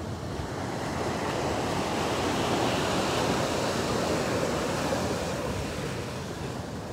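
Atlantic Ocean surf: a wave breaking and washing up the sand, swelling over a few seconds and then fading away.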